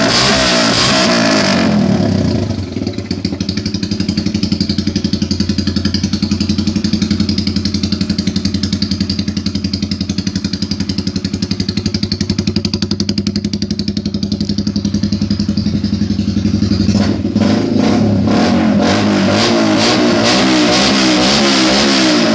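Dafier STM 125 supermoto's 125 cc engine running loud through a straight-pipe exhaust. It revs for the first couple of seconds and drops to a steady, evenly pulsing idle. Near the end it is blipped up and down again repeatedly.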